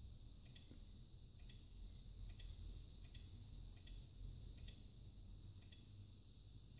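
Faint, evenly spaced clicks, a little more than one a second, from repeatedly tapping the scroll arrow on an HP OfficeJet Pro 8715 printer's touchscreen control panel.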